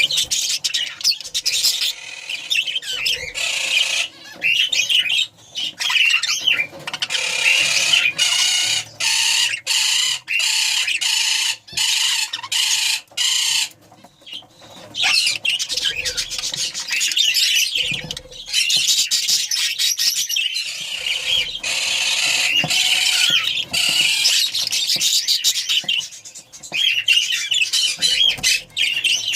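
Budgerigars chattering and warbling, with brief pauses.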